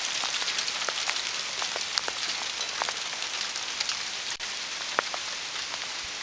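Small hailstones falling steadily onto the ground and a newly seeded lawn: a dense hiss of impacts with many separate sharp ticks from single stones.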